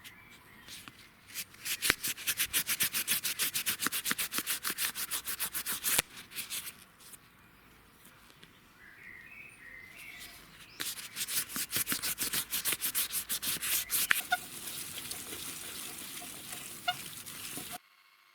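An old cup being rubbed down by hand in quick, rhythmic back-and-forth scraping strokes. There are two long runs of strokes with a quieter pause between them, then a steadier rub that stops abruptly near the end.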